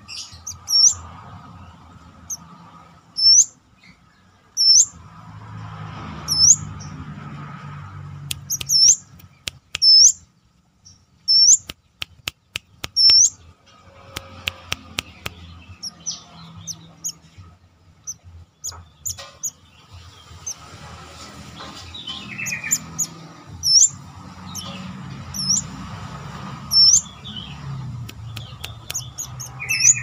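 Brown-throated sunbird (kolibri kelapa) giving a sharp, high, upslurred call note over and over, about one a second, with lower chirps near the end. A run of quick clicks comes about a third of the way in.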